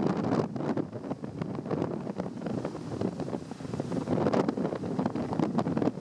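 Strong gale-force wind buffeting the microphone in rapid gusts, over the rushing noise of a rough, storm-driven sea.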